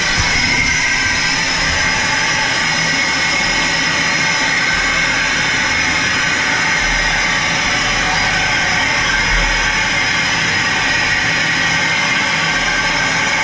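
Loud, steady rush of air venting out of a hyperbaric decompression chamber, heard from inside, as the pressure is let down for the ascent to 9 metres.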